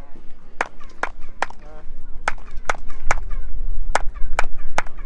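Hand claps, about ten in a row at two to three a second, in front of the stone staircase of the Temple of Kukulcán. Some claps come back off the stepped stairs as a short chirping echo, the effect likened to a bird's call.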